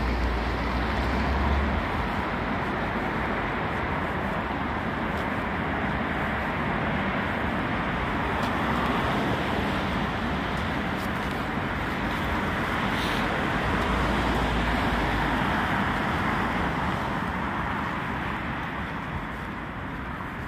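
Steady road traffic noise from cars driving along a city street, swelling a little as vehicles pass.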